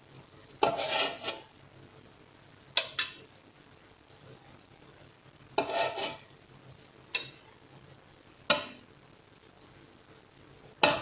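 Metal slotted spoon scraping and clinking against a stainless steel pot while lifting out stewed meat and vegetables: two longer scrapes, about a second in and near six seconds, and several sharp single clinks between and near the end.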